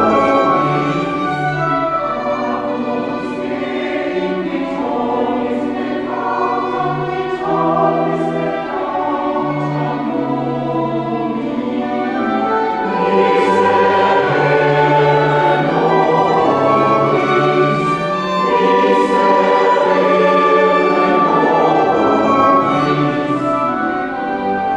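Church choir singing a mass setting built on Christmas carols, in sustained chords over a low bass line, with organ accompaniment.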